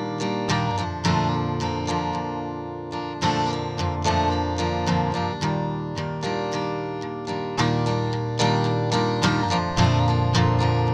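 Instrumental music on a plucked string instrument, playing a steady run of picked notes and chords.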